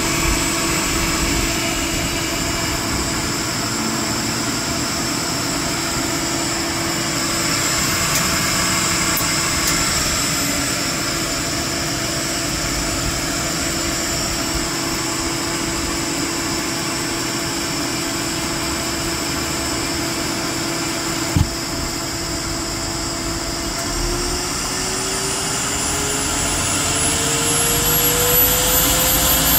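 Gas-fired unit running steadily with a hum and a high whine. About 24 seconds in, a tone starts climbing steadily in pitch, with the high whine rising alongside it, as the unit speeds up. One sharp click about 21 seconds in.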